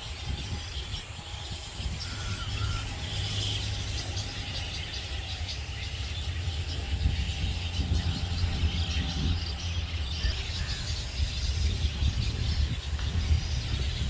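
Faint bird chirps over a low, uneven rumble that grows stronger in the second half.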